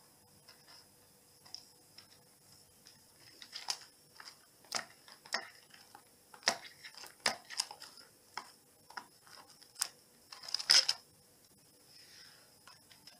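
A cat digging at a rug with its paws, irregular scratching and clicking of claws on the rug and wooden floor, with a louder flurry about ten and a half seconds in.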